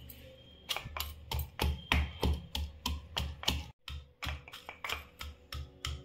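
Wooden pestle pounding roasted whole spices (black pepper, ajwain, black cardamom, cinnamon, cloves, fenugreek) in a wooden mortar, crushing them coarsely. It gives a dull knock about three times a second, beginning just under a second in, with a brief break a little past the middle.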